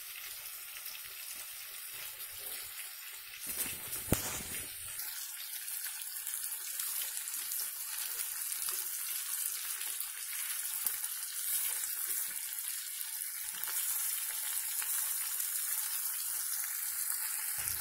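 Masala-coated rohu fish pieces shallow-frying in hot oil in a metal pan, a steady sizzle that grows a little louder toward the end. The first few seconds are quieter, with a watery sound of tamarind pulp being squeezed in water.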